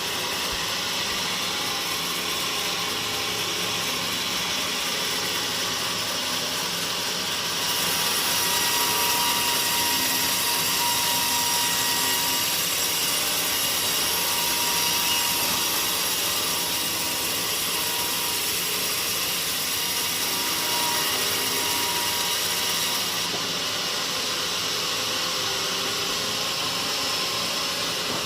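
Sawmill saw running steadily through a teak log, with a thin steady whine. It gets louder and harsher for about fifteen seconds in the middle, as the blade is in the cut, then eases back.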